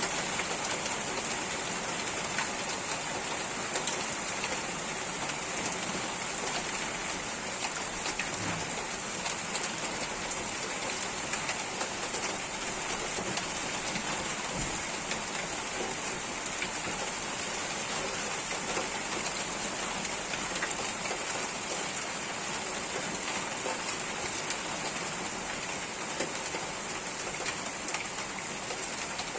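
Steady heavy rain falling and pattering on surfaces, a dense even hiss with scattered drop impacts.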